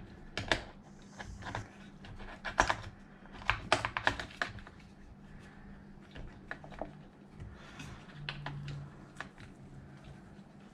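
Irregular light clicks and taps of hands handling motor wires, connectors and plastic parts of an RC truck, thickest about a third of the way in.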